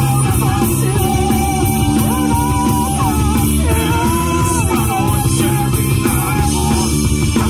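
Live rock band playing loudly: electric guitars, bass, drums with cymbals, and keyboard, with a vocalist singing over it. A couple of long held sung notes come about two and four seconds in.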